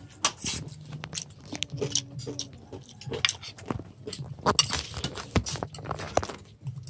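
Spoons clinking and scraping against plates and bowls as food is served, a string of short irregular clicks.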